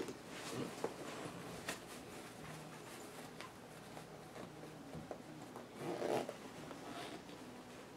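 Zipper on a snake-tail body suit being worked, with short zips and rustling of the suit's fabric, loudest about six seconds in.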